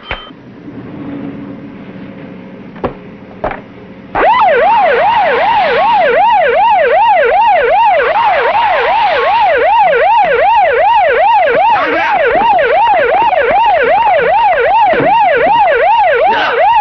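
A few sharp knocks in the first seconds, then about four seconds in a police car siren starts up. It is loud and sweeps quickly up and down, about two and a half times a second.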